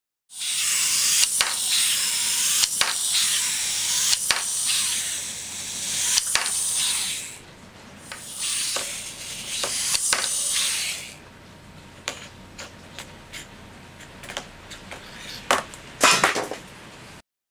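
A cat's paws tapping and knocking against a small plastic toy and a desktop, as scattered light taps with a cluster of louder knocks near the end, over a loud hiss that drops away about eleven seconds in.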